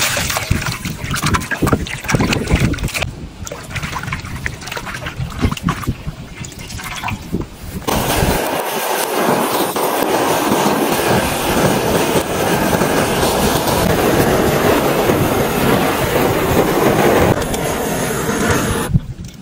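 Water sloshing and splashing in a metal wok as meat is washed by hand, with irregular clicks and knocks. About eight seconds in, this gives way to the steady hiss of a handheld butane gas torch burning against skin, which drops away shortly before the end.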